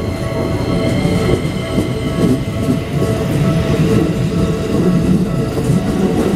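Keikyu 2100 series electric train passing at speed: a loud, steady rumble of wheels on rails. A level-crossing warning bell rings steadily behind it.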